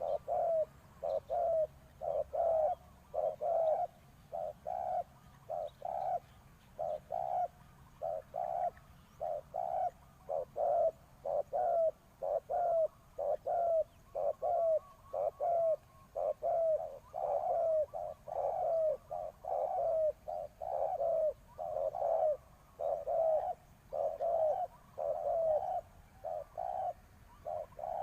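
Spotted dove cooing over and over, a steady run of short coos at about one or two a second. This is the calling of a decoy dove used to lure wild doves.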